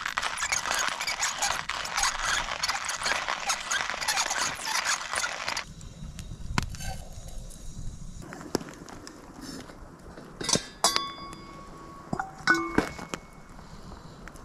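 Hand-cranked burr coffee grinder crunching coffee beans, stopping about five and a half seconds in. Later come a few sharp metal clinks that ring briefly.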